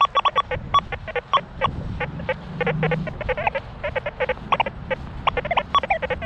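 XP Deus 2 metal detector sounding a rapid run of short beeps, several a second, as the coil sweeps over ground thick with iron junk: the chattering "machine gun iron" response.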